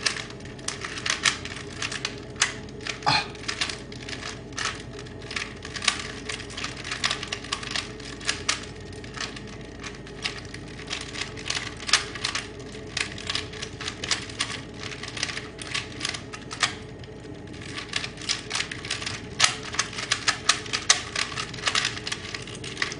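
Two Rubik's cubes being turned fast during a speed-solving race: rapid, irregular plastic clicking as the layers snap round, with a short lull about three-quarters of the way through.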